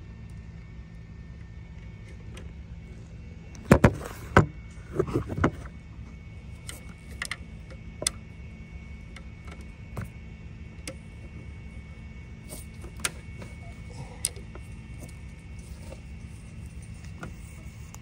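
Hand tools clinking and knocking on the alternator's mounting bolts in an engine bay. The loudest part is a cluster of sharp metal strikes about four seconds in, followed by a few more knocks and scattered single clicks, over a steady low rumble.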